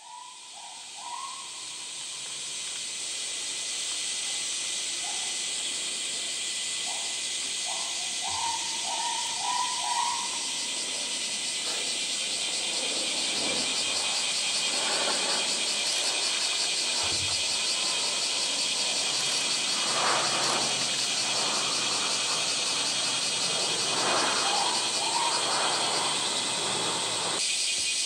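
Dense, steady chorus of summer cicadas, a loud even hiss with a fine pulsing texture. A few short whistled calls come through it in the first ten seconds.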